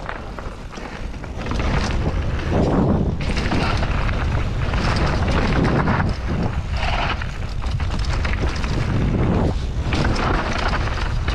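Mountain bike riding down a dirt trail: continuous rumble and rattle of tyres and bike over rough ground, with wind buffeting the helmet camera's microphone. It gets louder about a second and a half in.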